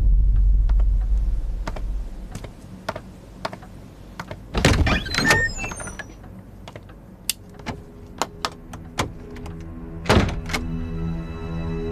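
Footsteps on a hard floor and a heavy wooden door: opened with a cluster of knocks about four and a half seconds in, then shut with a thunk about ten seconds in. Background music comes in near the end.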